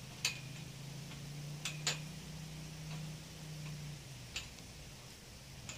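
A few sharp clicks of metal on metal, irregularly spaced, as hands fit a bolt and nut into the joint between the greenhouse's steel truss and bow tubes. A low steady hum underneath fades about four seconds in.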